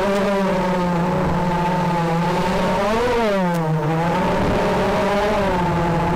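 FPV racing quadcopter's brushless motors and propellers whining steadily. About three seconds in the pitch swings up and then drops sharply as the throttle changes, then settles again.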